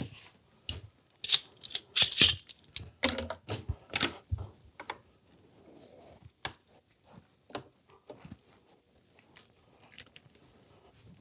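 Metal vise parts and tools clicking and clattering against a wooden workbench while a multi-axis vise is being clamped down and set up. A quick run of sharp knocks and rattles comes in the first few seconds, followed by a few scattered clicks.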